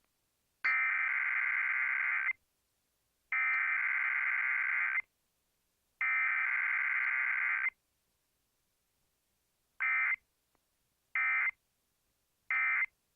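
Emergency Alert System SAME data bursts: three identical buzzy two-tone digital header bursts of nearly two seconds each, about a second apart, then three short end-of-message bursts near the end. This is the coded data part of a Required Weekly Test, sent without the attention signal.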